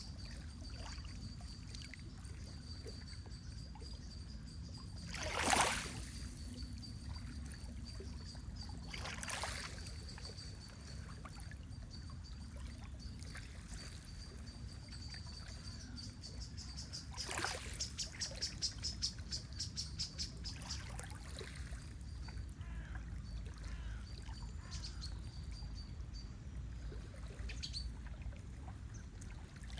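Lake water lapping and sloshing over a steady low rumble, with three louder swishes of water. A thin, steady high note runs through it, and a rapid high trill of about seven pulses a second sounds midway.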